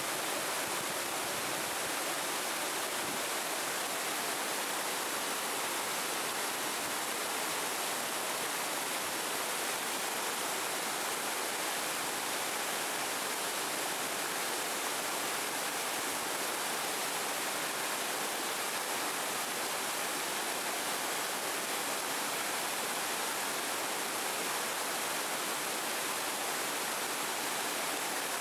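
Waterfall in strong spring flow, water pouring over wide rock ledges into a pool: a steady, even rush that is mostly hiss with little low rumble.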